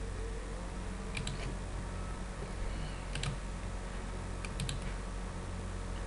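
Computer mouse clicking a few times, some clicks in quick pairs, over a steady low electrical hum.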